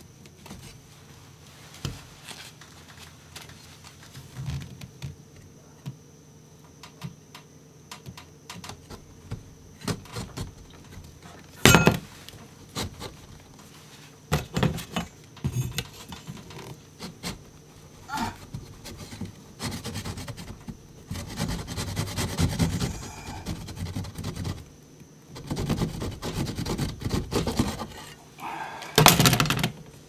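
Flat metal pry bar levering a painted wall panel away from its frame: scattered scrapes, creaks and knocks, with two loud sharp cracks, about twelve seconds in and near the end.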